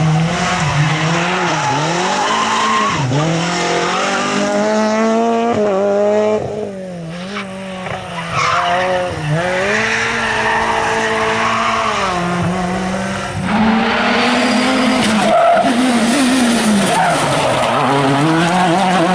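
Rally car engine revving hard, its pitch climbing and falling again and again through gear changes and lifts, with tyres skidding on the surface.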